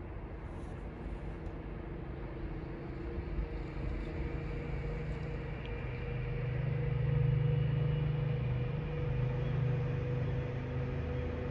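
Class 66 diesel locomotive's two-stroke V12 engine heard approaching from down the line: a steady low drone with a few held tones, growing louder about halfway through.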